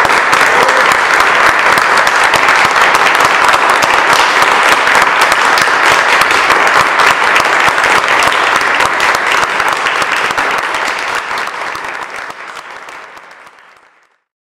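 Audience applauding steadily, a dense patter of many hands clapping, fading away over the last few seconds.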